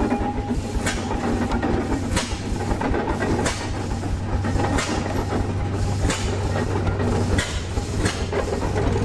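Frick steam traction engine running and driving along, its exhaust giving sharp chuffs every second or so over a steady low rumble.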